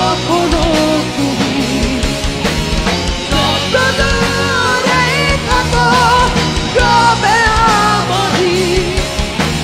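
Live rock band: a male voice singing a wavering melody over electric guitar and electric bass, with a steady beat underneath.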